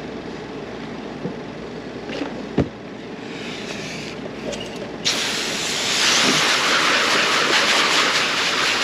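A few light knocks on the cleaning table. Then, about five seconds in, water from a hose starts spraying with a loud, steady hiss.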